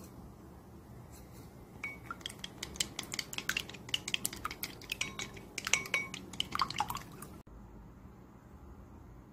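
Wooden chopsticks beating a raw egg in a glass bowl: a quick run of clicks and taps against the glass, some leaving a short ring. It starts about two seconds in and stops about seven seconds in.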